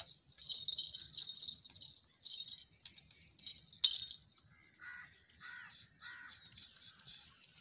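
Spinning fishing reel being wound in short bursts, a high rattling tick, with one sharp click about four seconds in; birds chirp in the second half.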